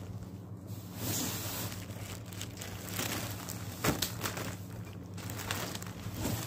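Cardboard carton being opened by hand: flaps and packing tape pulled and torn, and plastic wrapping crinkling, with a sharp snap about four seconds in and another at the end.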